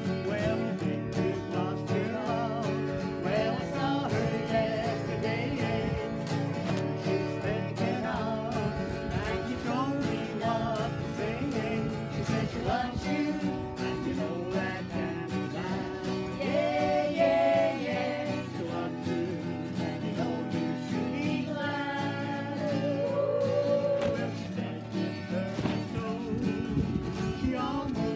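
Acoustic guitar strummed, with people singing along.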